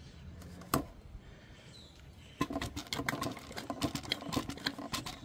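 Rapid, irregular small clicks and squeaks from about two and a half seconds in, from a hand tool drawing brake fluid out of a motorcycle's rear brake master cylinder reservoir. There is a single sharp click under a second in.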